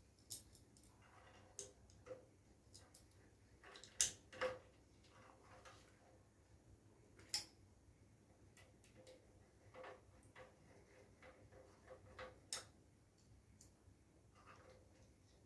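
Scattered, irregular small clicks and taps, the sharpest about four and seven seconds in: small parts and hand tools being handled while new parts are fitted into a water heater.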